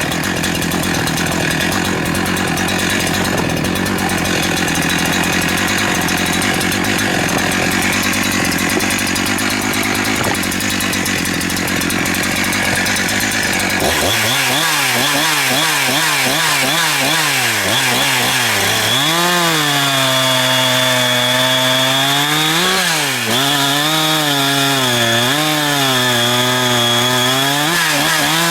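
Husqvarna 372XP-type two-stroke chainsaws running at full throttle through a log. About halfway through, the sound changes abruptly to a single saw's clear engine note that sags and picks up again and again as the chain loads up in the cut.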